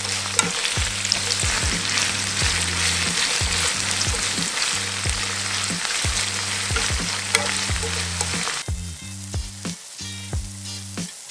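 Chicken gizzards sizzling as they fry in oil in a pan, stirred with chopsticks that click against the pan. About eight and a half seconds in the sizzle drops off sharply, leaving quieter crackling and clicks.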